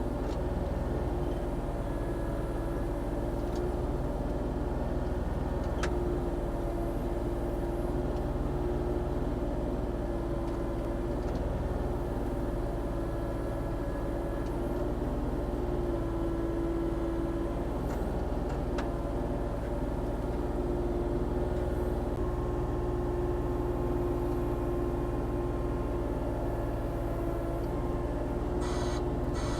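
Volvo ECR40D mini excavator's diesel engine running steadily while it works, with a few faint knocks and a short run of quick ticks near the end.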